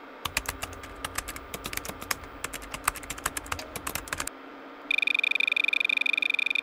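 Quick, uneven typing on a computer keyboard for about four seconds, each keystroke a sharp click over a dull low thud. About five seconds in, a steady high electronic tone starts, sounding two pitches at once with a rapid flutter.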